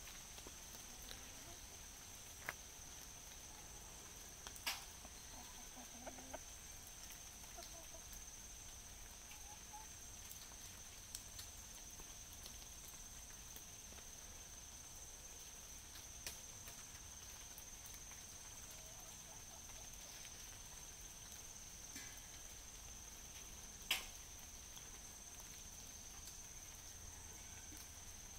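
Young black hens clucking softly now and then while foraging, over a faint steady high-pitched hiss. A few sharp clicks come through, the loudest about 24 seconds in.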